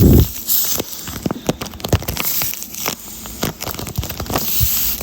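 A taped paper squishy being squeezed and handled close to the microphone: irregular crinkling and crackling of the taped paper and its stuffing.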